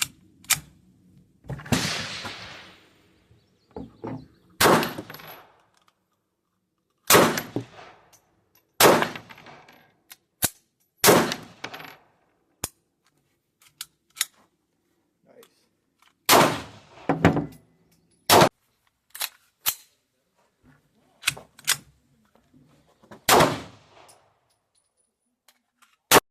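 Gunshots from 3D-printed firearms being test-fired: about nine loud shots at uneven intervals, each trailing off in echo, with several shorter, sharper cracks in between.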